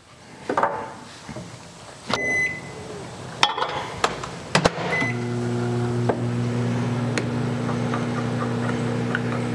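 Microwave oven being started: two short keypad beeps with clicks of the door and buttons, then from about five seconds in a steady hum as it runs, heating plastisol.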